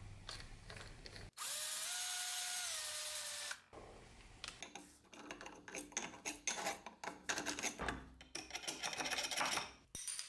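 A power drill runs for about two seconds at a vise jaw-plate screw, its motor whine rising, holding, then falling. Then a flat screwdriver scrapes and clicks against the vise's metal in quick strokes, dislodging caked dirt and rust.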